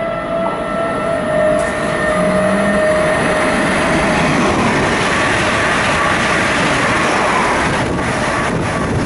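Electric multiple-unit passenger train coming in and running past close by. The rush of wheels on rail builds over the first couple of seconds and then holds steady, with a few sharp clicks of wheels over rail joints near the end.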